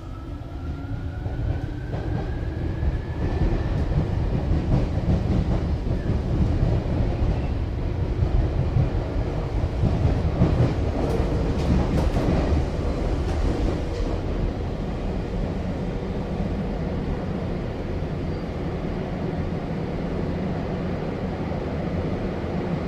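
Inside a Tokyu 8500 series electric train running through a subway tunnel. In the first few seconds a whine rises in pitch and fades out as the train gathers speed, then there is steady wheel and track rumble with clicks over rail joints, loudest around the middle.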